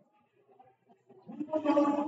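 A brief, indistinct voice about one and a half seconds in, after a near-quiet start.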